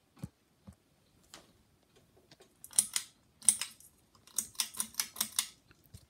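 Harbor Breeze Armitage II ceiling fan running with a vibration rattle: quick runs of light clicks in three bursts, the last and longest about four seconds in.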